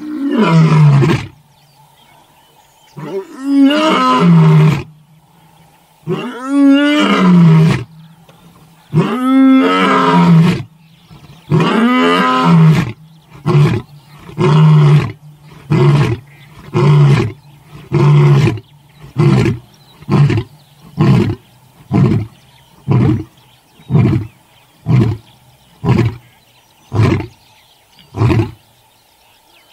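African lion roaring: five long, deep moaning roars, then a run of short grunting roars at about one a second that grow shorter toward the end, the typical full roaring bout of a lion.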